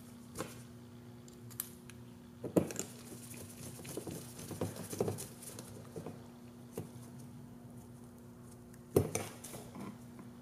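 Drone frame arm and screws being handled and fitted: scattered small taps and clicks, with sharper knocks about two and a half seconds in and again near the end.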